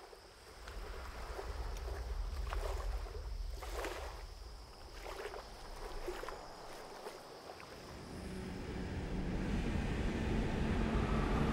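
Lakeside ambience: water lapping against a dock and moored boats over a low wind rumble and a steady high tone. From about eight seconds in, a distant car engine fades in and grows louder.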